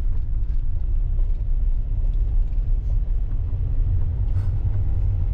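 Motorhome's engine and road noise heard from inside the cab while it drives slowly: a steady low rumble.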